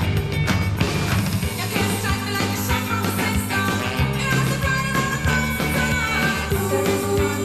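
1980s noise pop band recording: a full rock band playing, with a steady drum beat under a held melody line.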